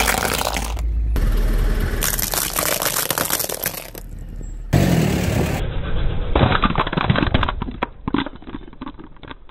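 Walnut shells cracking and crackling under a slowly rolling car tyre, a dense run of sharp snaps over the car's low rumble. The sound breaks off abruptly a few times, and the cracking grows sparser and quieter near the end.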